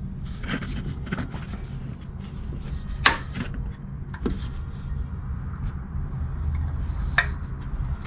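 Scattered knocks and clicks, the sharpest about three seconds in and another near the end, over a steady low hum.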